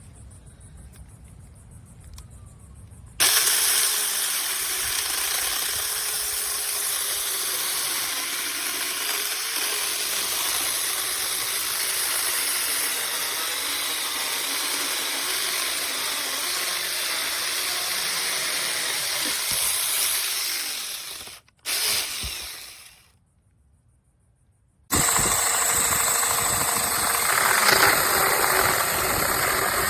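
Seesii DL07 8-inch brushless cordless mini chainsaw running, starting abruptly about three seconds in with a steady whir whose pitch wavers. It cuts out about twenty seconds in, runs again for about a second, and after a short silence a loud, rougher run starts near the end.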